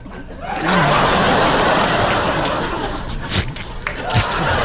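A man making sound effects with his voice, with studio audience laughter.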